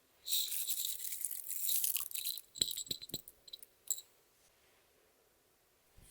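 Clear slime being worked by hand, making a dense sticky crackling for about two seconds, then scattered clicks and pops that stop about four seconds in.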